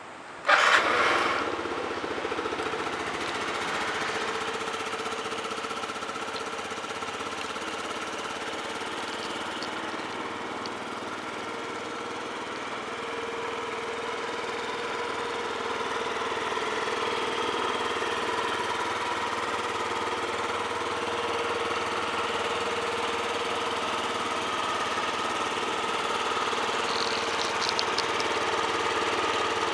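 2008 Yamaha Vino SA37J 50cc four-stroke scooter engine starting about half a second in and catching at once, then idling steadily. The engine is in good running order.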